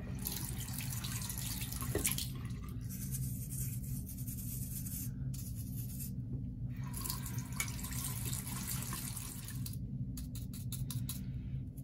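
A toothbrush scrubbing the screen of a faucet aerator at a wet sink, to brush out mineral deposits. The scrubbing comes in stretches of a few seconds with short pauses, over a steady low hum.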